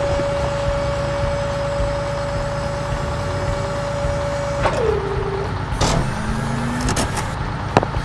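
Cartoon heavy-vehicle sound effects: a truck-like engine running steadily with a high steady whine that drops in pitch and stops about five seconds in, then a knock, a short rising tone and a few sharp clicks near the end.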